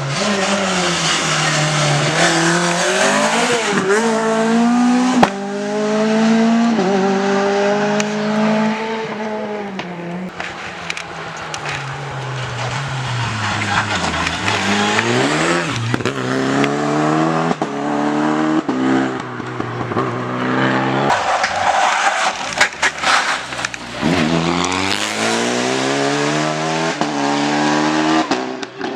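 Rally car engine at full throttle, rising in pitch and dropping sharply at each upshift. It falls away about halfway through as the car slows, then climbs through the gears again. Sharp cracks are scattered through it.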